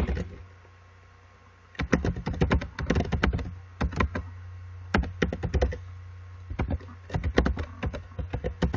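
Typing on a computer keyboard: runs of quick key clicks starting about two seconds in, broken by short pauses, over a steady low hum.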